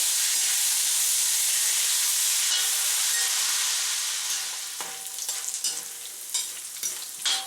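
Thin slices of pork belly sizzling hard in hot oil in a wok, the fat rendering out as they crisp. The dense sizzle eases about four and a half seconds in, and a series of sharp clicks and scrapes from a utensil stirring in the wok follows.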